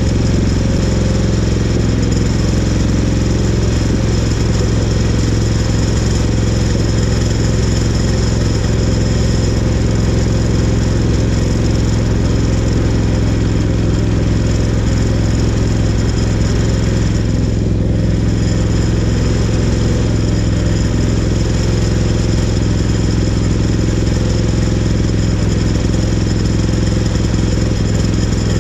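Portable band sawmill running steadily under its engine, the band blade cutting through a butcher-block glue-up. The higher hiss of the cut briefly thins about eighteen seconds in.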